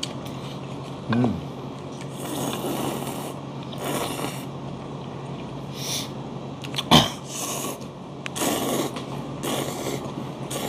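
People slurping thin somyeon noodles from a spicy whelk salad: a run of noisy sucking slurps, one every second or two, with a sharp click about seven seconds in, over a steady low hum.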